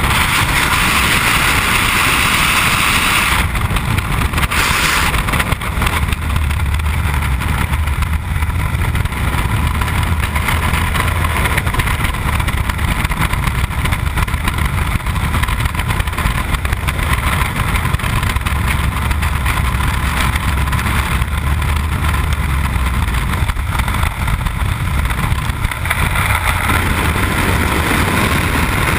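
Loud, steady freefall wind rushing over a helmet-mounted camera's microphone: a deep buffeting rumble with a hiss above it.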